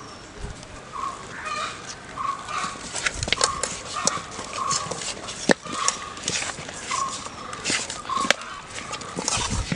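Domestic fowl calling in short repeated calls, about one a second, with a few sharp clicks and knocks among them.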